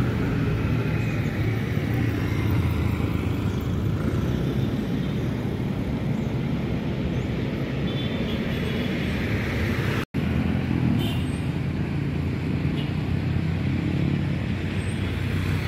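Steady street traffic noise: a continuous low rumble of vehicle engines and tyres on the road. The sound cuts out for an instant about ten seconds in.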